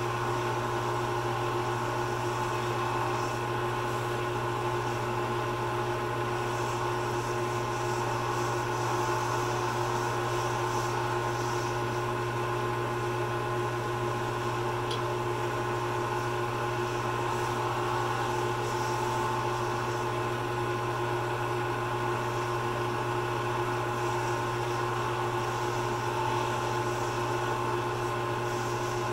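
Lathe motor running with a steady hum while micro-mesh pads polish a spinning acrylic pen blank, with a faint rubbing hiss that comes and goes.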